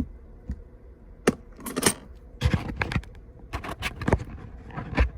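Small hard metal pieces clicking and clinking together as they are handled, in a scatter of sharp taps over several seconds.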